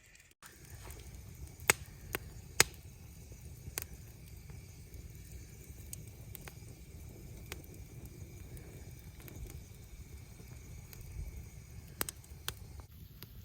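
Wood fire crackling: irregular sharp pops and snaps over a steady low rumble, with the loudest pops a couple of seconds in.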